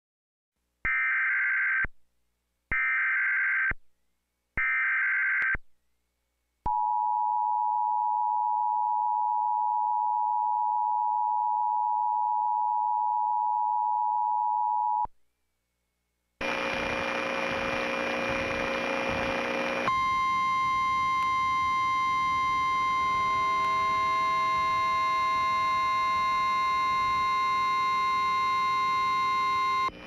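Emergency Alert System tones: three short bursts of SAME digital header data, then a steady attention tone held for about eight seconds. After a brief pause, a harsh, buzzy steady tone with a hum underneath runs through the rest.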